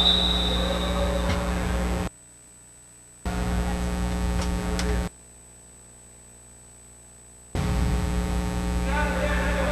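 Steady electrical mains hum over faint room noise, which drops out abruptly twice, for about a second and then for about two and a half seconds, before coming back. A short high tone sounds in the first second.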